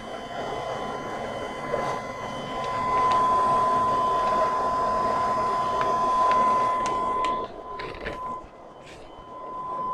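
Steady machine noise with a thin, constant high whine; the noise swells for a few seconds and drops away about seven and a half seconds in, followed by a few light clicks.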